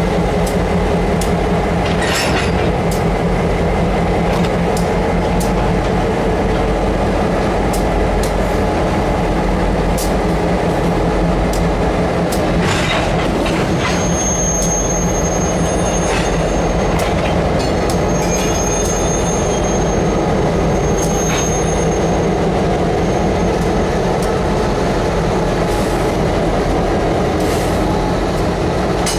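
EMD GP38-2 diesel locomotives, two-stroke V16 engines, running steadily as they pass close by at low speed, with scattered clanks from the train. A thin high wheel squeal comes and goes from about halfway through.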